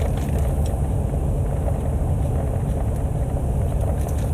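Steady low rumble inside a car's cabin, the running noise of the vehicle.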